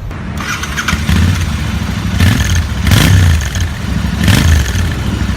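Motorcycle engine revving, with repeated throttle blips that swell and fall back over a steady low rumble.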